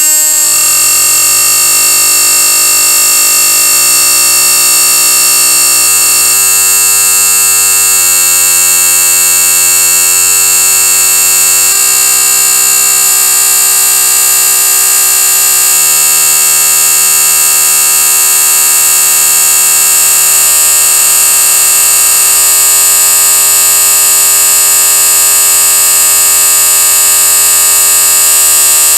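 Marbles spinning around inside a bowl: a loud, continuous rolling whir, strongest in the high treble, with ringing tones that shift pitch in steps every few seconds.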